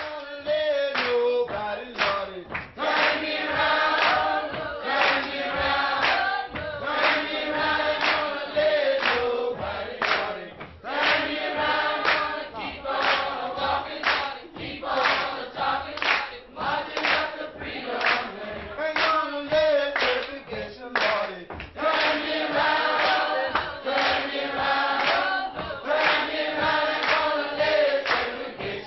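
Music: a choir singing, with sharp claps or percussion strokes keeping the beat.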